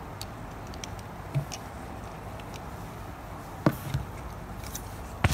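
Scattered light clicks and taps from handling a phone and a plastic tripod mount while the phone is fitted into it, over a steady low hum. One sharper click comes about two-thirds of the way through, and a burst of rustling at the very end.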